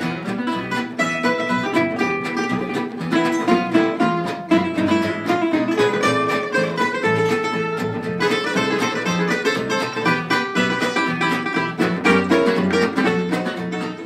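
Live acoustic string music: a Croatian tambura picking a quick melody over an acoustic guitar and an upright double bass.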